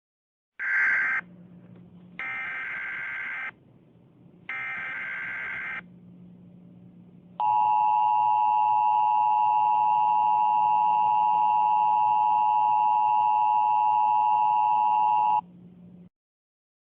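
Emergency Alert System tones: three short buzzy bursts of SAME header data, then the EAS two-tone attention signal held steady for about eight seconds before cutting off suddenly. Together they mark the start of an emergency alert broadcast.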